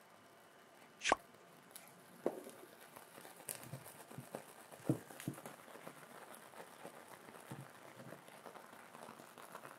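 Solid fuel tablet burning in a folding pocket stove, giving faint, irregular crackles and pops. A single sharp click about a second in.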